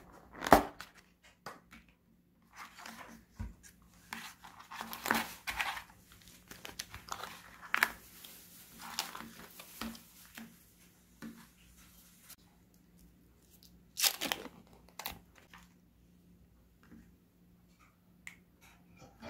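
Plastic food packaging handled and unpacked by hand: a sharp click of a plastic lid, then long stretches of crinkling and tearing of wrappers and pouches, a loud rustle about fourteen seconds in, and scattered light taps of packets and the plastic tray.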